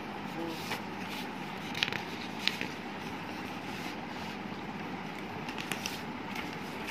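Sheets of drawing paper being handled and turned over, a few brief rustles and crinkles over a steady background hiss.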